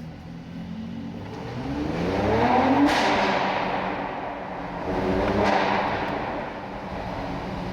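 Mercedes-AMG C43's twin-turbo V6 exhaust revved twice from idle in an underground car park, each blip rising in pitch and ending in a sharp crack as the revs fall back.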